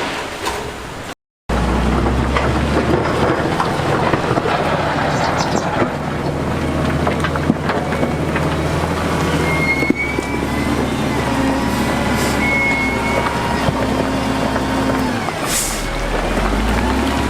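Heavy diesel construction machinery running steadily under load, with a few short high squeals past the middle. A brief cut to silence about a second in.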